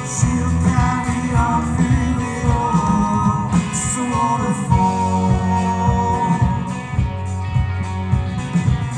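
Live rock band playing a song: guitar, bass and drums, with cymbal crashes near the start and about four seconds in.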